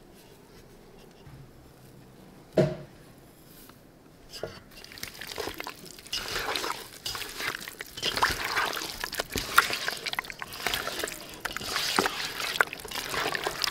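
Raw chicken pieces, yogurt and spice powder being mixed by hand in a pot: wet squelching and slapping with many small clicks, starting about five seconds in. Before that it is quiet apart from a single knock.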